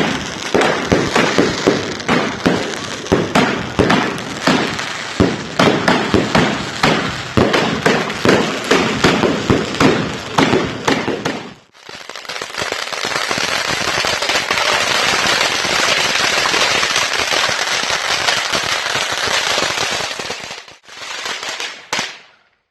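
Robin Hood kit car's exhaust misfiring, with a rapid run of loud, irregular bangs and pops, several a second. After a short break it turns into a steady, dense crackle, which cuts off near the end.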